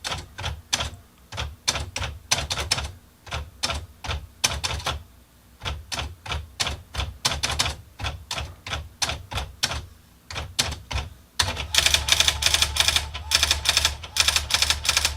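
Brother SX-4000 electronic daisywheel typewriter: keys clicking at a typing pace for about eleven seconds as an all-caps title is typed in centering mode. Then the daisywheel starts printing the bold title, with rapid, louder strikes over a steady motor hum.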